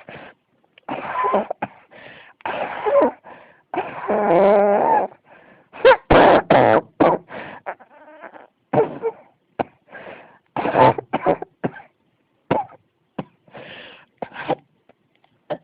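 A person coughing over and over in a long fit: short coughs in quick clusters, with one longer pitched sound about four seconds in and the densest run of coughs about six seconds in.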